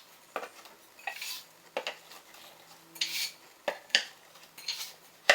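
Metal assembly hardware clinking and tapping as dowels are screwed to a side panel with an Allen key. There are a string of irregular sharp clicks and knocks, with a couple of short scraping sounds.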